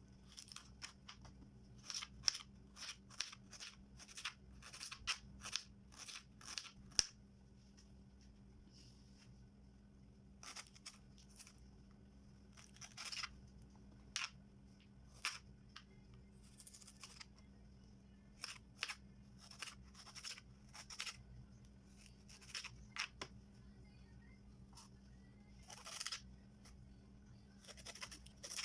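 Knife slicing peeled fresh ginger into thin strips: short crisp cuts in quick irregular runs with pauses between, densest in the first several seconds.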